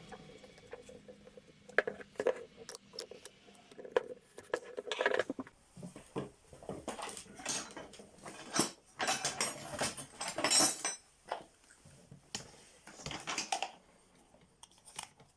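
Irregular clinks, clicks and scraping of hard parts being handled, typical of working on a disassembled electric drill by hand; the drill motor is not running.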